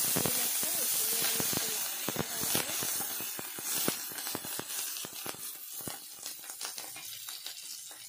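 Curry leaves spluttering and sizzling in hot oil with peanuts, cashews and chana dal in a kadai: a loud hiss full of crackles and pops, with the scrape of a wooden spatula stirring. The hiss dies down gradually as the leaves crisp.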